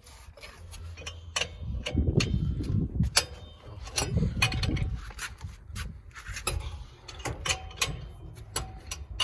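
Wheel spanner working a car's wheel nuts loose: scattered sharp metallic clicks and scraping as the spanner is fitted and turned, with two stretches of low rumbling noise.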